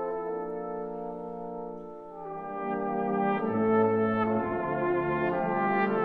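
Cornet solo with brass band accompaniment playing a slow ballad in sustained chords. The music softens about two seconds in, then swells louder as low bass notes come in about halfway through.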